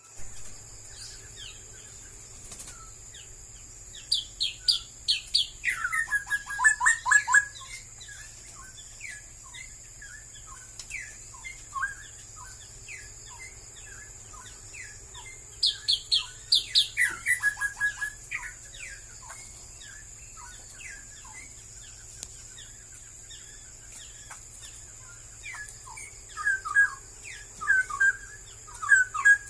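Straw-headed bulbul singing: three loud phrases of quick notes, each a few seconds long and about ten seconds apart, with scattered softer chirps between.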